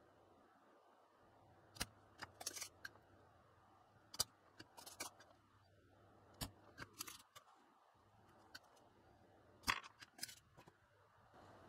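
Spring-loaded desoldering pump (solder sucker) snapping sharply as it fires, four times at intervals of a couple of seconds, each snap followed by a short burst of lighter clicks and rattles: molten solder being sucked from capacitor joints to free the capacitors from the circuit board.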